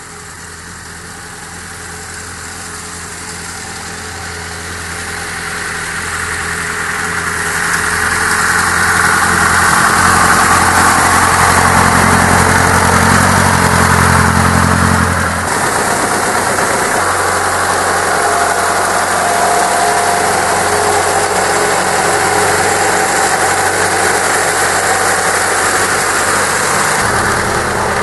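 Antique open touring car's engine running as the car drives up toward and past, growing steadily louder as it approaches. About fifteen seconds in, the sound drops abruptly and the engine carries on at a steadier, lower level.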